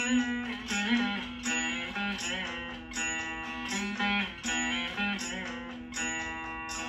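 Saraswati veena played solo in Carnatic style: a run of plucked notes, several of them bent and slid in pitch on the fretboard (gamakas), over the ringing of the strings.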